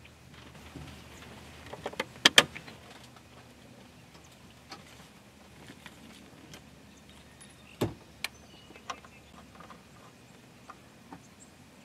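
Sharp clicks and knocks of hands working a camper van's shore-power inlet: the hinged cover snapping open and a power-cord plug being pushed into the socket. The loudest is a quick cluster of clicks about two seconds in, followed by a single knock near eight seconds and a few lighter ticks.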